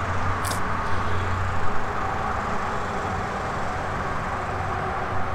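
Steady hum of nearby vehicle traffic, with a short high click about half a second in.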